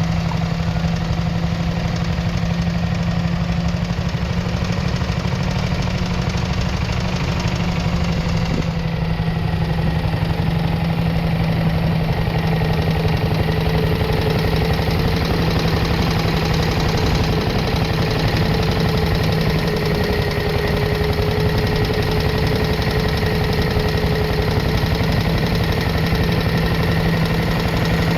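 1941 Trusty pedestrian tractor's 600 cc single-cylinder JAP petrol engine running steadily with a rapid, even beat of firing strokes.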